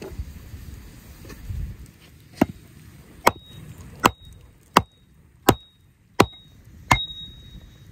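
Hatchet chopping into a wooden stake: seven sharp strikes about three-quarters of a second apart, starting a couple of seconds in, most with a short ringing tone after them.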